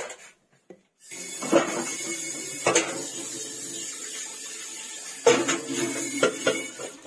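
A metal tray of dry rice being handled: several sharp clinks and knocks of the metal over a steady rustling hiss. The loudest knocks come about one and a half seconds in and again about five seconds in.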